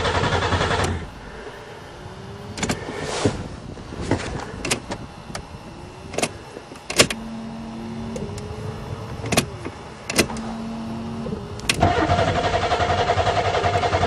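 Starter cranking a Buick Regal's 3.8-litre V6 in an even, steady rhythm without it catching: a cranking attempt that stops about a second in, clicks and two short hums, then another cranking attempt near the end. The engine turns over but won't fire, which the owner puts down to no spark from corrosion under the ignition module plate beneath the coil packs.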